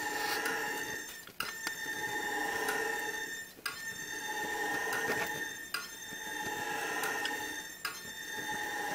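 Rhythmic metallic squeal from the steel pipe being turned for roll welding. The tones swell and fade in a cycle of about two seconds, with a sharp click at each turn, four times in all.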